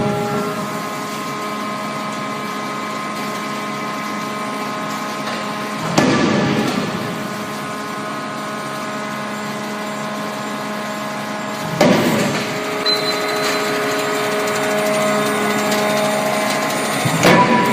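CNC forging hammer striking three times, about six seconds apart: each blow a sudden impact with a brief ring after it, over the steady hum of the running machine.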